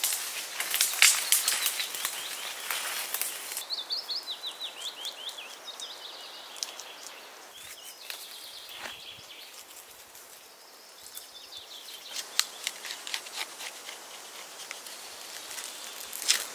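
Sharp crackling clicks, with a bird giving a rapid run of short, falling high chirps a few seconds in. The crackling stops and the outdoor background quietens, then the clicks start again near the end.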